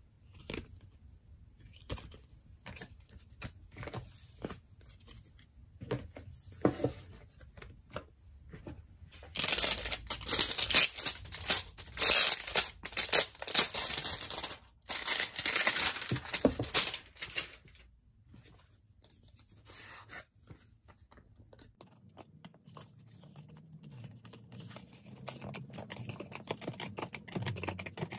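Clear plastic wrapping crinkling and tearing as it is pulled off a boxed album, loud for about eight seconds in the middle. Before it come light taps and clicks of photocards being handled.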